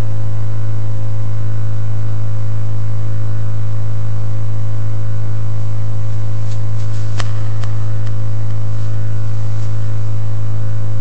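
Loud, steady electrical mains hum from the sound system: a low buzz with many even overtones that never changes, with a few faint clicks a little past the middle.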